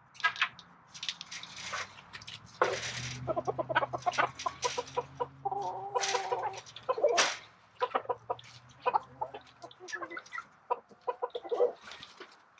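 Chickens clucking, with scattered knocks and taps and a low hum underneath for much of the time.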